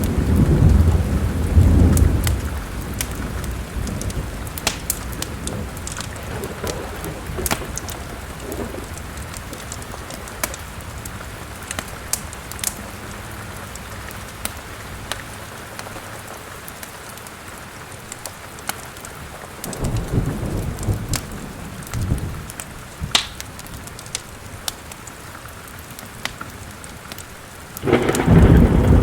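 Steady rain with thunder rumbling at the start, again about two-thirds of the way through, and a loud clap near the end, over the crackling and popping of a wood fire in a fireplace.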